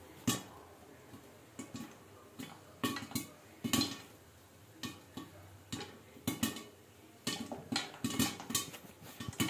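Popcorn kernels popping in a covered kadai with a glass lid: sharp, irregular pops that come more often toward the end as the popping gets going.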